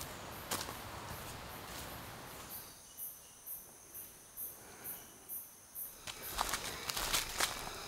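Footsteps on a leaf-littered dirt trail. Then, for about three seconds, a quieter stretch where an insect calls in short high pulses about twice a second. The footsteps pick up again near the end.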